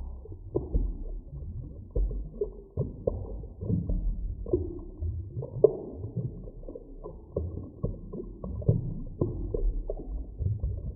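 Muffled underwater ambience: a low rumble with many irregular soft clicks and knocks, and a couple of brief higher tones about halfway through.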